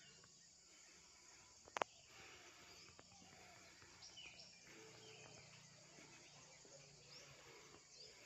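Near silence: faint outdoor ambience with a few faint bird chirps, broken by a single sharp click about two seconds in.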